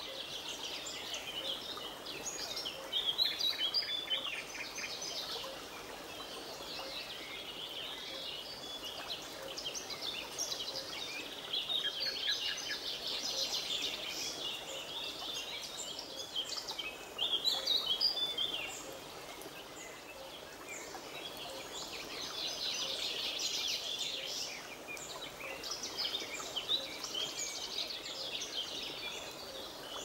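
A chorus of many small birds chirping and singing at once, busiest about three seconds in and again just past the middle. Beneath it runs the steady, even rush of a flowing mountain river.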